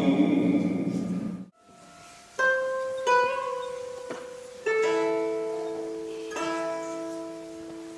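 A chanting voice that cuts off suddenly, then after a brief pause slow music on a plucked string instrument. Four sparse plucked notes and chords, each left to ring and fade.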